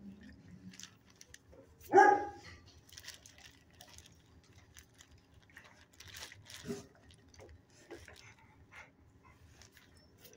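A dog barks once, a single short bark about two seconds in. In between come faint shuffling and sniffing noises from dogs nosing along the kennel floor.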